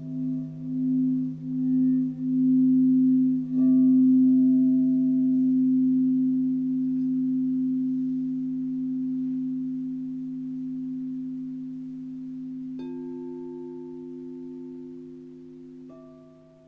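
Quartz crystal singing bowls. A large floor bowl is sung with a wand around its rim, its tone swelling and pulsing, then struck about three and a half seconds in and left ringing as a long, steady, slowly fading hum. A handheld crystal bowl is struck twice near the end, adding higher tones over the hum.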